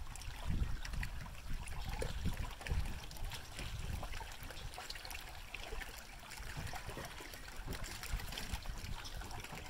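Small waves lapping and trickling against a boat hull, with wind rumbling on the microphone in uneven gusts.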